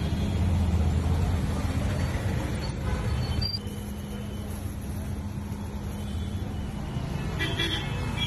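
Steady low rumble of road traffic, with an engine-like hum held underneath; it drops a little about three and a half seconds in.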